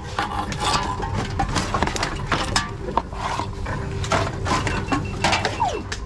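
Aluminium drink cans being fed one after another into a TOMRA reverse vending machine: a run of irregular clicks, clanks and rattles from the cans and the machine's intake mechanism, several a second.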